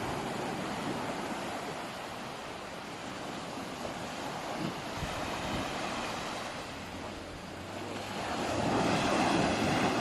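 Sea waves washing, swelling louder near the end.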